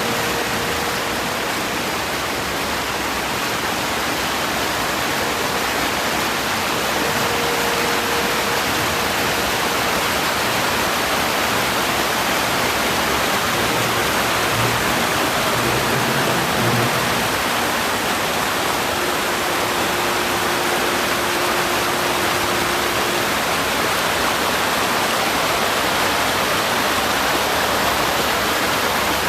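Steady rush of river water pouring over a stone weir.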